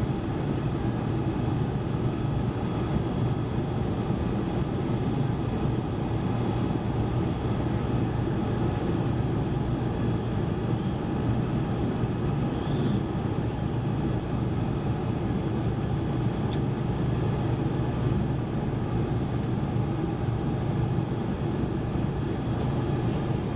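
Inside the cabin of a Boeing 747-400: a steady low hum and rush of the engines running at low power before the takeoff run.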